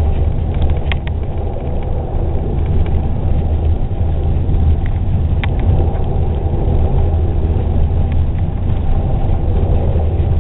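Engine and drivetrain of a Bombardier tracked snow bus running at a steady pace, heard inside the cabin as a loud, even low rumble with a few light rattles.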